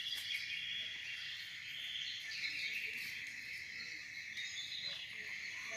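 Insects chirring steadily, a continuous high-pitched sound.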